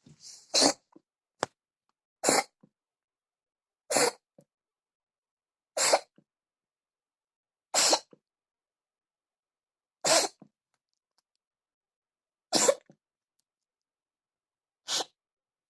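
Domestic cat sneezing over and over: eight short, sharp sneezes about two seconds apart, coming a little further apart toward the end. It is a persistent sneezing fit from an illness in which the owner could not tell whether the cat was coughing or sneezing.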